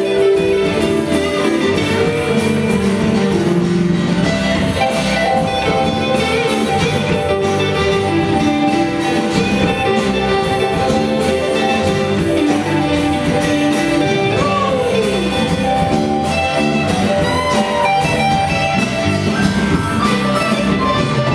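Live blues-rock band playing an instrumental stretch: electric and acoustic guitars over drums, with a harmonica played into a cupped vocal microphone. Held notes and a few bent notes ride over the band, one sliding down about two thirds of the way through.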